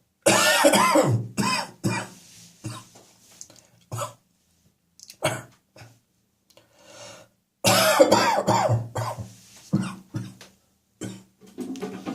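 A person coughing up catarrh: a hard fit of coughs just after the start, then scattered single coughs and throat clearing, then a second loud fit of coughs a little past the middle, with more coughs near the end.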